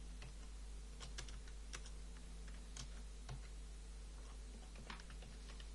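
Computer keyboard keys tapped in faint, scattered, irregular strokes, a word being typed.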